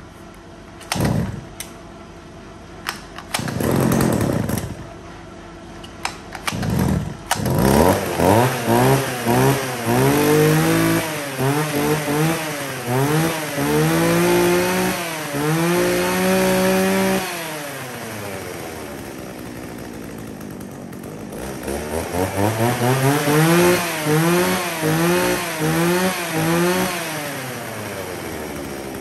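Shindaiwa E300 two-stroke chainsaw being started: a few pulls of the starter cord, then the engine catches about seven seconds in. It is revved in a series of quick throttle blips, drops back to idle, is blipped again in another quick run, and settles to idle near the end.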